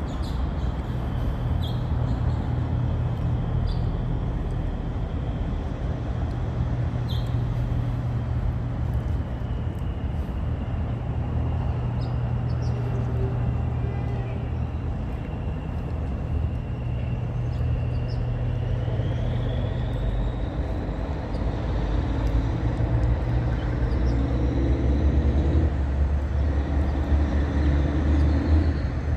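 Freight train rolling through the yard: a steady low rumble with a faint high whine that slides down and then up in pitch, getting louder over the last several seconds.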